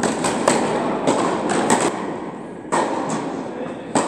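Tennis balls being struck with rackets and bouncing on the court: about ten sharp, irregular pops, several bunched together in the first two seconds, sounding in a large indoor tennis hall.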